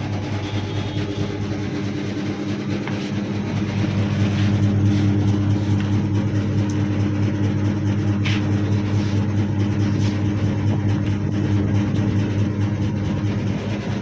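Chicken plucker's 1.5 HP electric motor running with the drum empty, a steady hum that grows a little louder about four seconds in.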